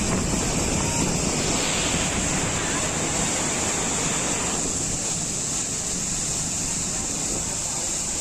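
Floodwater rushing and churning over a concrete dam spillway as an overflowing lake spills: a steady, loud wash of water noise that turns slightly duller about halfway through.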